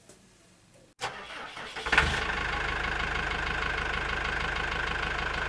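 A car engine starting about two seconds in and settling into a steady idle. It is a joke sound effect laid in place of the lathe, whose own motor is actually very quiet.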